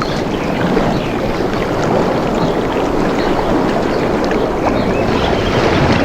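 Steady rushing of running water, with short high chirps scattered through it.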